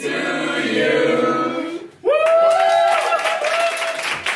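A small group of people singing together, breaking off briefly about halfway through and then coming back in on a held note.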